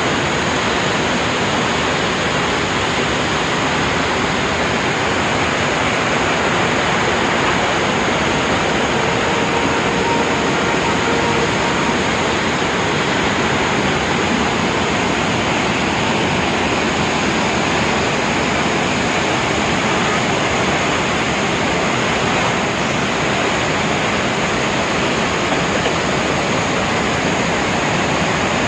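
Dudhsagar Falls in heavy flow: a loud, steady rush of falling water that never lets up.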